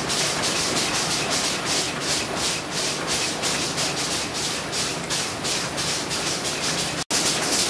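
Plastic bag-making machine running: a steady mechanical noise with a high hiss that pulses about three times a second as film is fed over the belts and rollers. The sound cuts out for an instant near the end.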